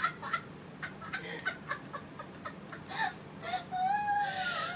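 Women laughing in short, high-pitched cackling bursts. Near the end the laughter turns into one long, drawn-out squeal that wavers in pitch.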